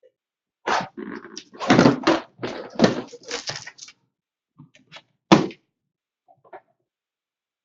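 Cardboard card boxes being handled and set down on a table: a quick run of knocks and thunks with short scrapes for about three seconds, then one more sharp thunk about five seconds in.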